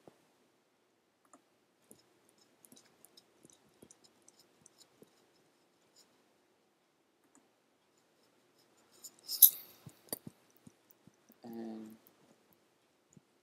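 Quiet room with faint scattered clicks. About nine seconds in comes a short, sharp hiss, and near twelve seconds a brief hum from a person's voice.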